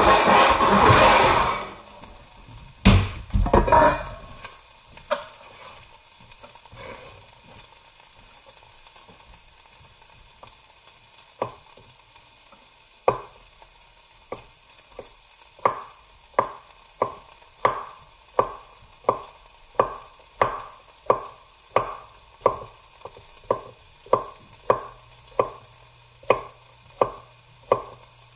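Tosa nakiri knife chopping a carrot on a wooden cutting board: sharp knocks of the blade on the board, starting off sparse and settling about thirteen seconds in into a steady rhythm of about three cuts every two seconds. A burst of loud noise and a couple of clatters come at the start.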